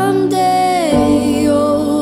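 A song with a singer's voice holding and sliding between notes over steady chords; the sung line drops in pitch about a second in.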